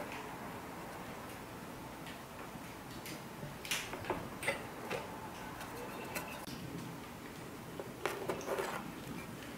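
Scattered light clicks and taps as a round tin cutter is pressed through rolled pastry dough onto a wooden table, with a few more clicks near the end as a wooden comb is handled on the table.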